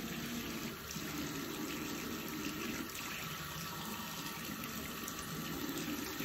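Steady stream of water running from a bathroom sink mixer tap, splashing over a kitten held under it and into the basin.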